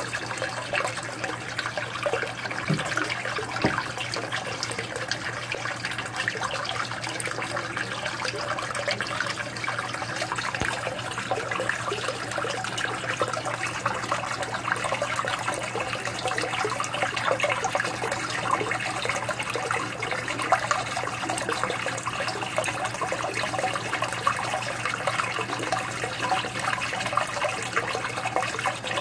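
Aquarium water trickling and splashing steadily, as from a filter outflow, over a low steady electric hum.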